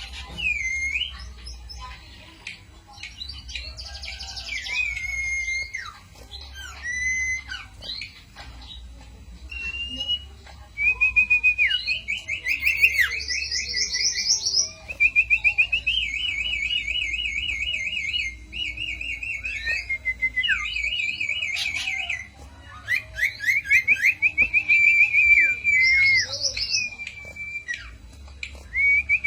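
Songbird known in Indonesian bird-keeping as the 'cito' singing a long, varied song. Slurred whistles that slide up and down give way, from about ten seconds in, to loud rapid trills of short repeated notes, each lasting one to three seconds and sometimes jumping to a higher pitch.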